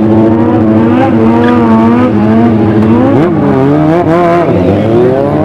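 Motorcycle engine revving, its pitch rising and falling continually, with a deeper drop and climb back about three to four and a half seconds in.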